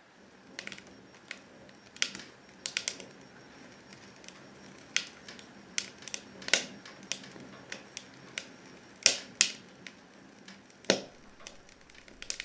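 Wood fire crackling: irregular sharp snaps and pops over a faint hiss, with a few louder pops past the middle.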